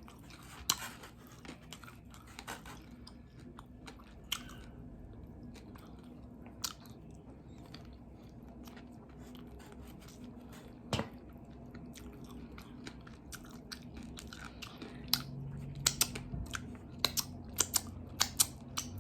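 Close-up chewing and biting on crispy fried chicken wings: scattered wet clicks and crunches, growing more frequent in the last few seconds.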